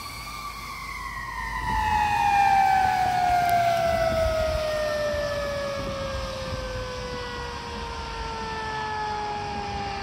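Fire truck's mechanical siren winding down, its pitch falling slowly and steadily, over the low rumble of the truck's engine as it pulls away.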